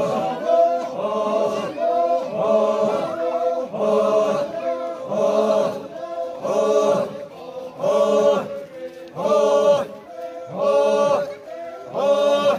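Group of men chanting a traditional Poumai Naga chant in unison, in short held phrases repeated a little more than once a second.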